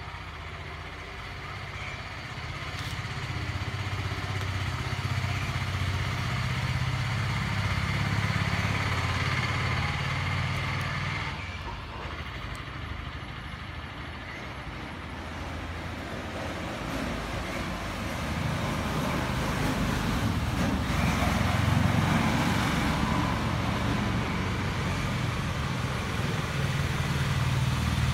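A motor vehicle engine running as a low hum that swells, drops off sharply about eleven seconds in, then builds up again to its loudest late on.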